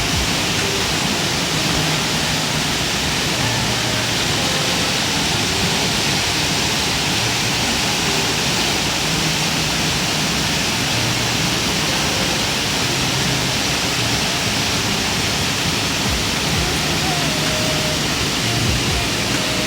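Mountain stream water rushing over rocks: a steady, loud, even rush with no breaks.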